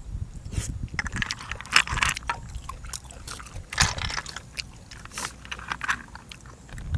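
A person biting and chewing food, irregular crunches and mouth clicks, while eating boiled apple snails with raw vegetables.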